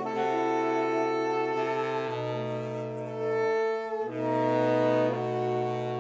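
Saxophone quartet of four different saxophones playing sustained chords together, the harmony changing every second or two over a low bass line, with a brief break near the middle.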